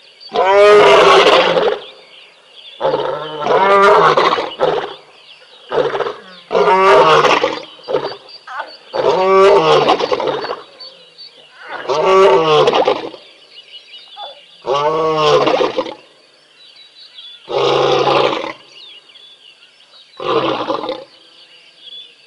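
Male lion roaring in a long bout: about nine deep calls spaced two to three seconds apart, the later ones growing shorter.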